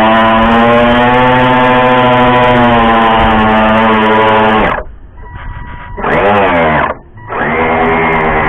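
Small boat engine running steadily. About five seconds in it drops off sharply, then revs back up with a rising pitch and, after a brief dip, settles into a steady run again.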